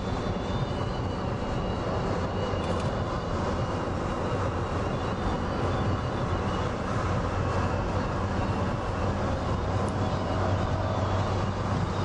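Motor vehicle running with steady road and engine noise and a low hum, unchanging throughout.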